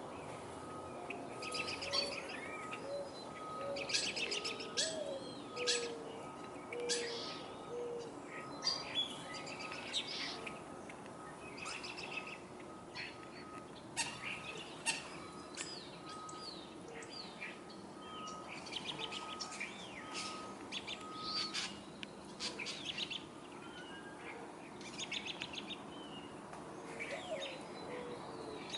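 Several backyard birds chirping and calling, with quick chattering runs and short high calls, and a series of low soft notes through the first third.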